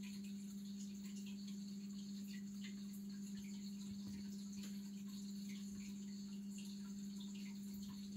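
Aquarium pump humming steadily at one low pitch, with faint, irregular small ticks over it.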